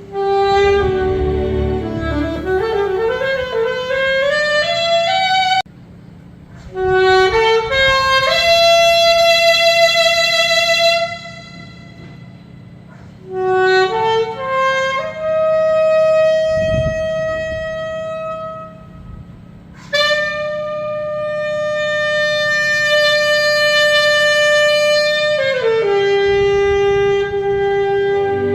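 Saxophone playing a slow melody: each phrase climbs note by note to a long held note, with short breaks between phrases about 6, 12 and 19 seconds in.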